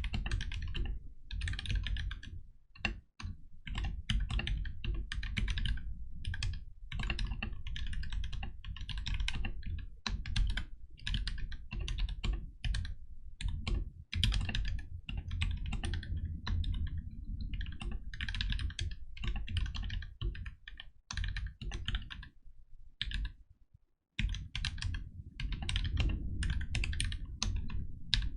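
Continuous fast typing on a mechanical keyboard with lubed, filmed Gateron Black linear switches and PBT keycaps, a deep, muted clack from the tape-modded case, pausing briefly twice.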